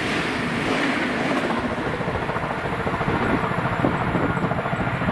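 SBB passenger train rolling past along the platform, steel wheels on rails with a rushing hiss. The hiss dies away two to three seconds in as the last coach goes by, leaving a lower rumble as the train draws off.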